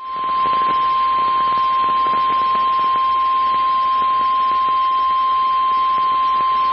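NOAA Weather Radio's 1050 Hz warning alarm tone, a single steady high tone held unbroken over faint radio hiss. It signals that a severe thunderstorm warning is about to be read.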